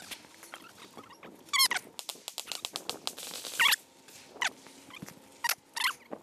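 Footsteps on gravel, with several short, high squeaks whose pitch wavers, one sliding down in pitch about three and a half seconds in.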